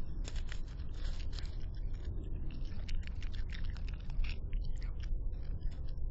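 A raccoon eating leftover chicken scraps close to the microphone: irregular crunching and chewing clicks with some scraping, over a steady low hum.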